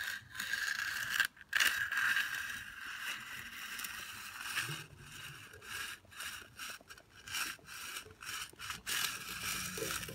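Steel hand concrete edger scraping along the edge of a fresh concrete slab, rounding the construction joint, in repeated strokes with short breaks between them.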